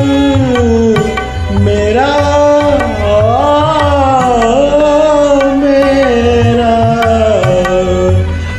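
A man singing a long, wordless melismatic phrase in Hindustani classical style, his voice gliding up and down over a karaoke backing track with tabla.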